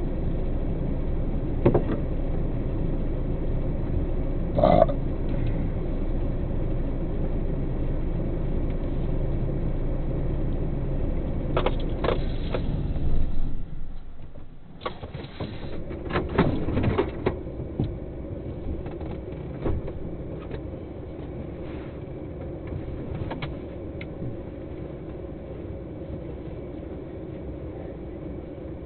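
Truck engine idling with a steady low rumble and a few clicks and knocks, cutting off sharply about halfway through; afterwards a quieter steady hum remains.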